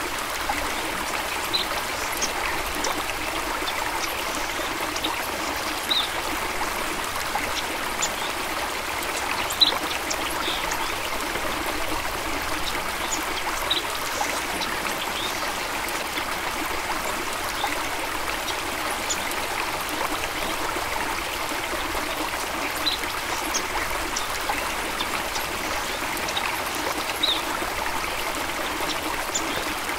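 Small stream running steadily over stones, with scattered brief high plinks of trickling water; one plink a little under halfway through is the loudest.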